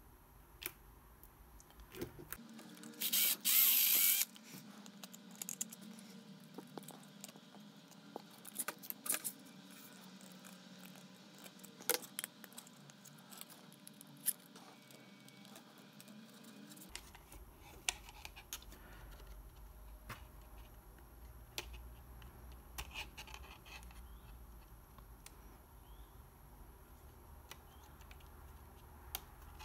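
Small 3D-printed plastic parts and a thin metal axle rod handled and fitted together by hand: scattered light clicks and taps, with one short, louder rustling scrape about three seconds in.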